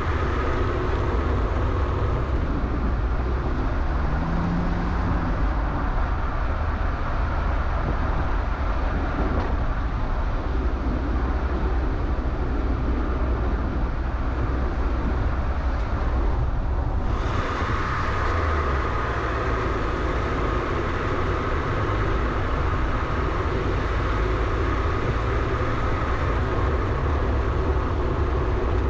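Exterior driving noise of a small city car on the move: a steady rumble of tyres on the road and wind on the outside-mounted microphone. It changes briefly about seventeen seconds in.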